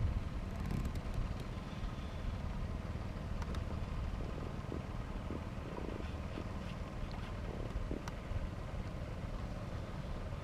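A steady low engine drone, with a few faint clicks and knocks over it.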